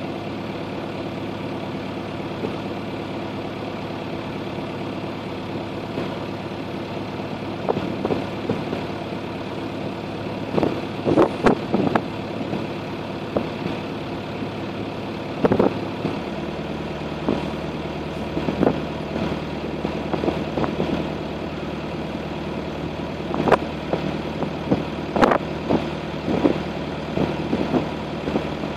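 A boat's engine running steadily at low speed, its note changing about halfway through. Short, sharp sounds come at irregular intervals from about a quarter of the way in.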